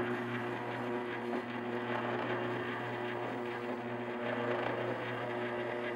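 Electric ice cream maker with a frozen freezer bowl running, its motor turning the paddle with a steady hum, as cold custard is poured in through the top to start churning.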